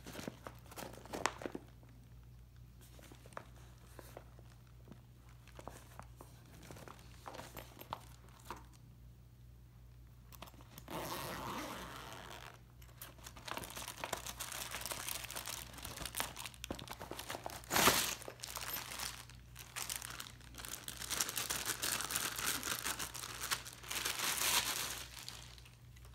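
Plastic wrapping crinkling and rustling while a tripod is unpacked from its nylon carry bag. The first ten seconds hold only scattered light clicks and handling sounds. After that the crinkling is dense, with one sharp crackle about 18 seconds in.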